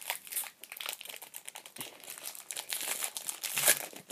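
Foil wrapper of a trading-card pack crinkling as it is pulled open by hand: a dense run of sharp crackles, loudest near the end.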